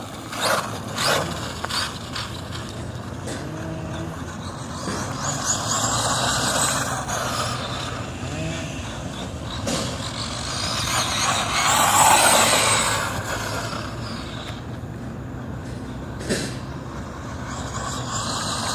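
HPI Bullet MT electric RC monster truck running on a 3S LiPo, its motor whining and its sound rising and falling as it accelerates and slows, loudest about twelve seconds in. A sharp knock sounds a few seconds before the end.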